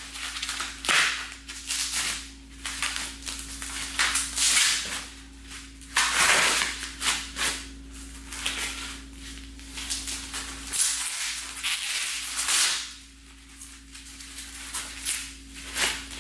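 Packing material crinkling and rustling in irregular crackles as parts are unwrapped by hand, loudest around six and twelve seconds in, over a steady low hum.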